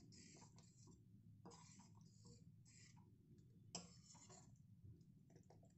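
Faint scrapes and light clicks of a spatula stirring thick curry in a stainless steel kadai, a few separate strokes with one sharper click a little past the middle. Otherwise near silence.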